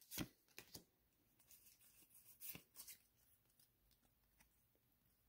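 A few faint, short clicks and slides of a stack of Pokémon trading cards being handled in the hands, mostly in the first second and again around the middle, with near silence between.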